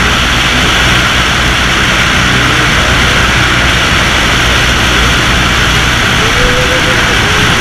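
Small floatplane's propeller engine running steadily: a loud, even drone with a low hum under a broad rushing noise.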